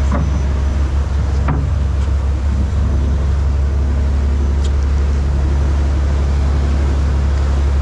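Fishing boat's engine running with a steady low drone, under a haze of water and wind noise. A couple of brief knocks come near the start and about a second and a half in.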